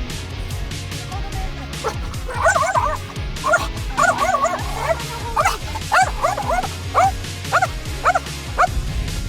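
A dog whining and yipping in a run of short rising-and-falling cries, starting about two seconds in, close together at first and then spaced out to about one every half second. Music plays underneath.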